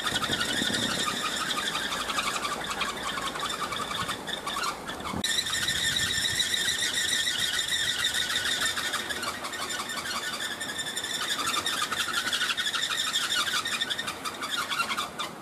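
Bamboo kolecer wind propellers spinning in the wind, the propeller hub squealing on its axle: a continuous high chirping squeak made of very rapid pulses, dropping briefly about five seconds in.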